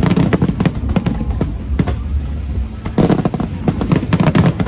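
Fireworks display: rapid volleys of sharp bangs and crackles, heaviest in the first second and again from about three seconds in, with a short lull between.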